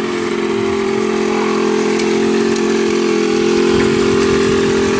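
Sports motorcycle engine running at steady low revs, growing a little louder as the bike rolls up close.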